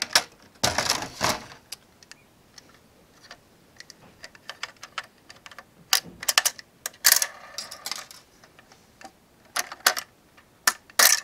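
Plastic blister packaging and cardboard being worked apart by hand to free a diecast model: irregular clicks, snaps and crackles, with longer crinkling bursts about a second in, around seven seconds in and near the end.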